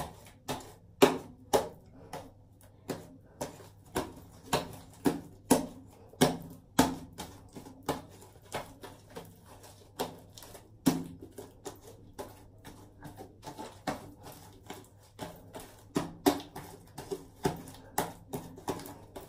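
Homemade slime being kneaded and worked by hand, giving a run of short, sharp sticky smacks and clicks, roughly one to two a second; the slime is still a little sticky.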